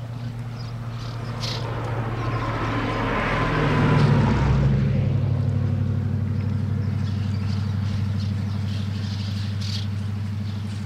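An engine running steadily at a low pitch, with a louder rushing swell that peaks about four seconds in and then fades back.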